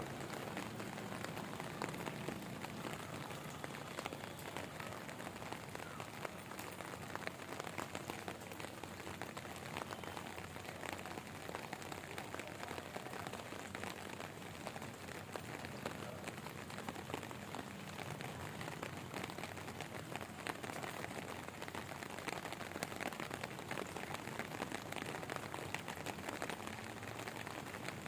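Steady rain falling, an even hiss dotted with many separate drop hits.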